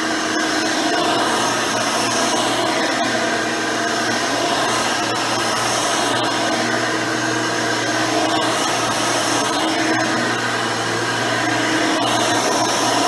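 Hoover Elite 600 upright vacuum with a 7-amp motor and 20-blade fan running steadily while it is pushed over carpet, its pitch shifting slightly every couple of seconds.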